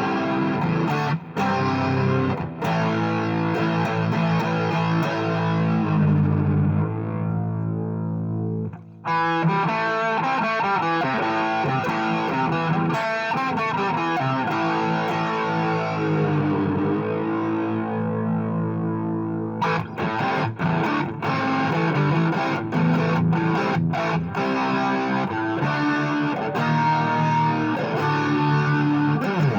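Electric guitar played through distortion, holding sustained chords and notes. The playing nearly stops about nine seconds in, then resumes, with sharper picked attacks in the later part.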